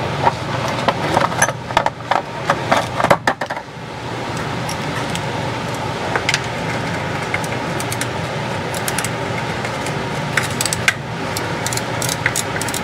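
Hand ratchet and socket on a bolt: sharp metal clicks and clinks in the first few seconds, then a quick, even ratchet clicking near the end, over a steady background hum.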